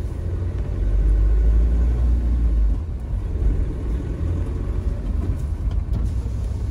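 SUV driving off, its engine and road rumble heard from inside the cabin. The low rumble swells about a second in and eases back a little before three seconds in.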